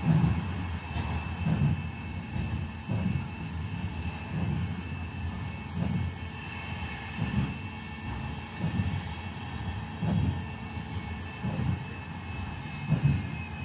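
Bombardier M5000 tram running along street track, heard from inside the passenger cabin: a steady low rumble that swells about every second and a half, with a few faint steady high tones above it.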